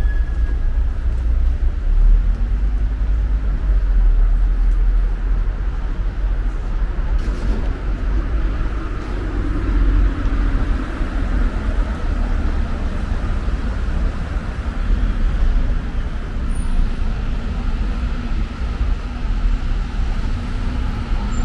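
City street traffic noise: passing cars and other vehicles making a steady rumble that is heavy in the low end.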